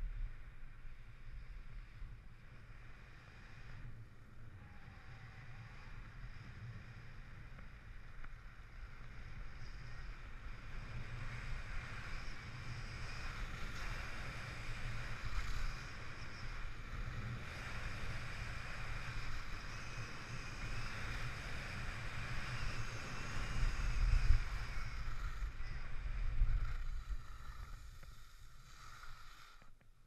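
Skis hissing and scraping over groomed snow while wind buffets the helmet camera's microphone, with a low rumble. The hiss grows louder about a third of the way in as speed builds, with a couple of harder scrapes late on, and falls away near the end as the skier slows.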